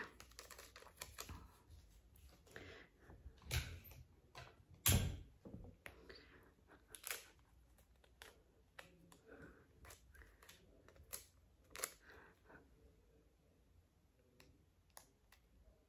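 Ordinary clear sticky tape being pulled off the roll, torn and handled: a scatter of small crackles and clicks, with two louder snaps about three and a half and five seconds in, thinning out near the end.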